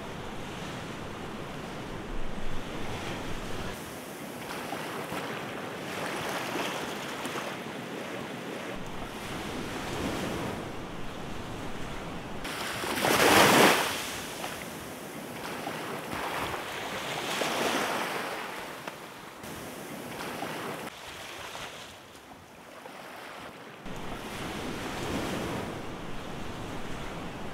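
Small waves washing up over a sandbank beach, surging and fading every few seconds, the loudest wash about halfway through, with wind on the microphone.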